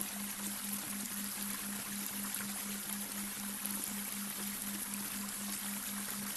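Babbling brook running steadily, with a low hum underneath that pulses about four times a second: a delta-wave brainwave tone.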